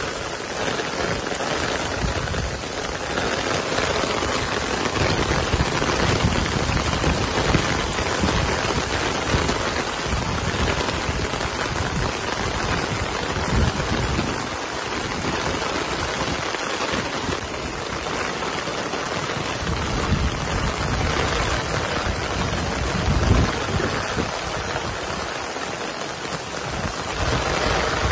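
Heavy rain pouring onto a paved street and puddles: a steady, dense hiss of drops splashing.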